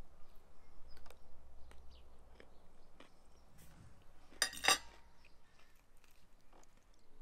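Quiet eating sounds at a table: chewing, and small clicks of a fork and fingers on a plate while quail meat is pulled apart. About four and a half seconds in comes one louder, sharp rattling noise lasting under half a second.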